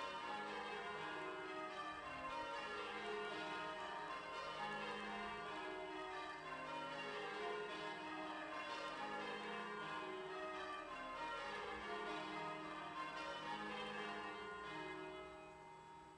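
Tower bells of the cathedral rung in changes, struck one after another in repeating descending sequences, fading out near the end.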